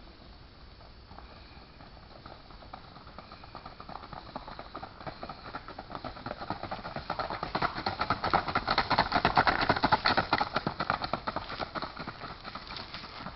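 Hoofbeats of a single-footing stallion shod with keg shoes, a fast, even rapid patter. They grow louder as he comes closer, are loudest about nine to ten seconds in, then fade as he goes by.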